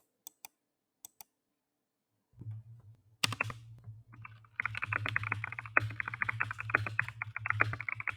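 Typing on a Zifriend ZA68 Pro mechanical keyboard: a few single key clicks, then one loud keystroke about three seconds in, then fast continuous typing, several keystrokes a second, from just past the middle. A low steady hum sits underneath from about two and a half seconds in.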